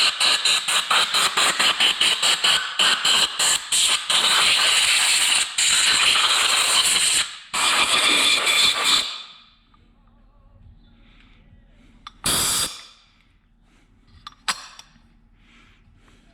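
Cleaning a Can-Am Outlander's CVT clutch parts of debris from the shredded drive belt: rapid scrubbing strokes, several a second, run into a steady hiss that stops about nine seconds in. A short burst of hiss follows about twelve seconds in, then a sharp click.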